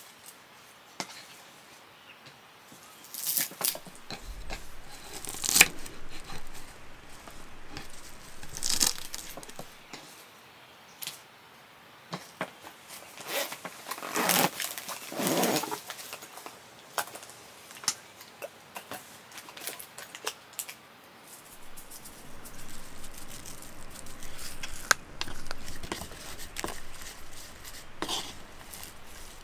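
Irregular handling sounds: rustling, crinkling and tearing noises with scattered small clicks and knocks, the longest rustle about halfway through.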